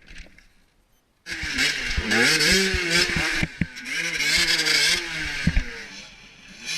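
Enduro motorcycle engine revving up and down as the bike rides off, starting suddenly about a second in, with a few sharp knocks.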